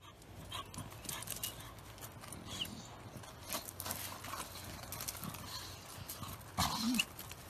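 Dogs moving about on gravel: scattered soft scuffs and clicks, with a short low vocal sound from one of them near the end.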